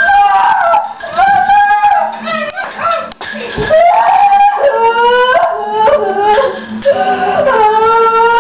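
A woman wailing and howling loudly in long, drawn-out cries that slide up and down in pitch: play-acted baby crying.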